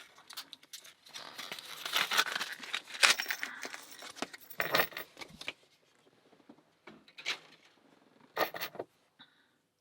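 Small brass padlock and its key being handled, giving metallic clinks and jingles with some rustling. The clinks are dense for the first half and come as a few separate ones later.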